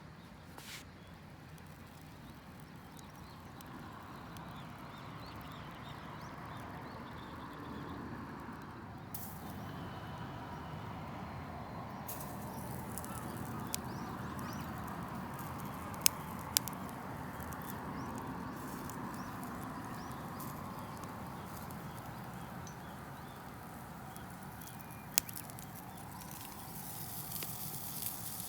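Wood campfire burning with a steady hiss that swells slightly after a few seconds, broken by a few sharp crackles.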